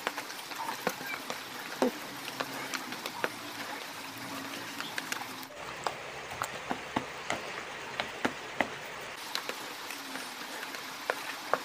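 A plastic spoon mashing and stirring damp carp-bait dough in a plastic bowl: irregular small clicks and scrapes of the spoon against the bowl, over a faint steady hiss.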